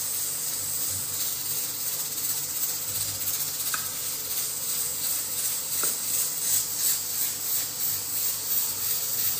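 A steady hiss, strongest in the high range, with a couple of faint ticks.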